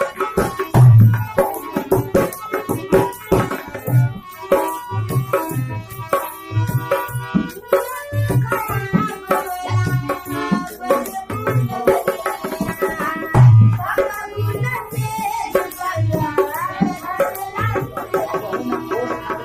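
Live Bhojpuri folk song: a dholak drum beats a steady rhythm under a harmonium's reedy melody, with a woman singing over them through the middle.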